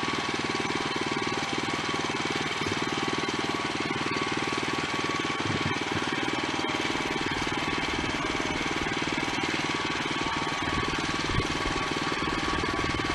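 Woodmizer LX25 band sawmill running steadily on its Kohler engine: a fast, even engine beat with a steady high whine over it.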